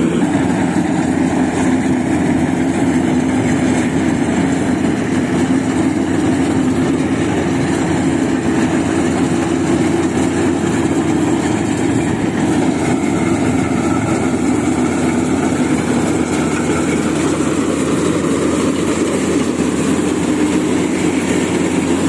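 Maxxi Bimo 102 crawler rice combine harvester running, a loud, steady engine and machinery drone that holds the same pitch throughout.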